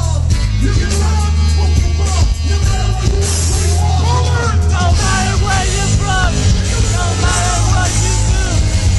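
A rock band playing loud live music through a festival PA, heard from among the crowd, with a heavy bass line and vocals over it.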